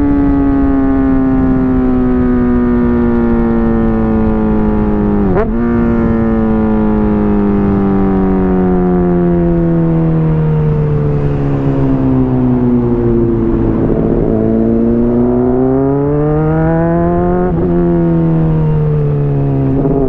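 Honda CBR600RR inline-four through a slip-on exhaust, heard from the rider's helmet while riding. The engine note falls slowly for most of the stretch, with a brief sharp break about five seconds in. Near the end it climbs, drops at a gear change, and breaks again just before the end, with steady wind rush throughout.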